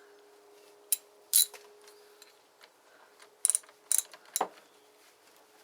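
A handful of separate sharp metallic clicks and knocks from hand tools working on a chainsaw's bar and chain, over a faint steady hum.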